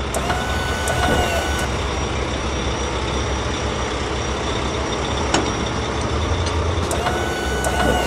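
Animated asphalt paver's engine sound effect: a steady low rumble under a grinding, hissing noise. A short set of high tones about half a second in comes back about seven seconds in, as a looped effect does.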